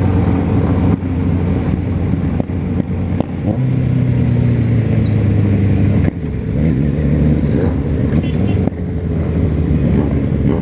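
Motorcycle engine running under way, with wind noise on the microphone. The engine note breaks and changes pitch about a second in and again about six seconds in, as gears are changed.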